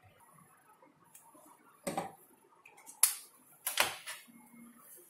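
A few sharp clicks and light knocks of small plastic items handled on a benchtop as a marker pen and a bottle are picked up for labelling: one about two seconds in, then three more over the next two seconds.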